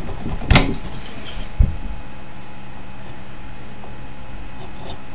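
Handling of a small glass vacuum tube and its metal tube shield: a sharp metallic clatter about half a second in and a short dull knock about a second later, then a steady low hum with a few faint ticks near the end.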